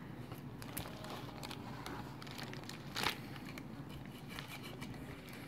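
Faint scratching and crackling as old screen adhesive is scraped off an LG G3 phone's frame with a small tool, with one louder scrape about three seconds in.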